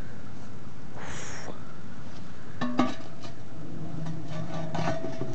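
Wood-gas flares burning at the base of a large charcoal kiln with a steady noise. Nearly three seconds in a metal chimney pipe clanks as it is set in place, and about a second later a steady low hum starts up as the chimney begins to draw, a musical tone sounding down the chimney.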